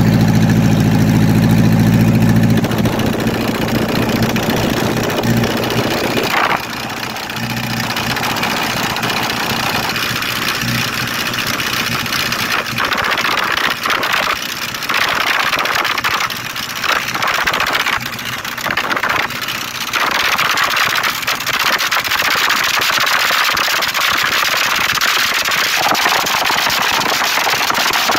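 Volkswagen TDI PD unit-injector turbodiesel running with the bonnet open. It drones deep and steady for the first couple of seconds, then the sound turns to a rushing hiss that swells and falls unevenly.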